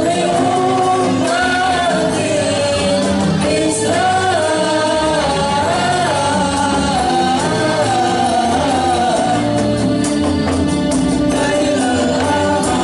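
Samroh performance: a high sung melody carried over a steady rhythm of frame drums, without a break.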